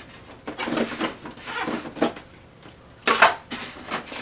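Styrofoam packaging being handled: foam rubbing and scraping against foam in a string of short, irregular scrapes, the loudest about three seconds in.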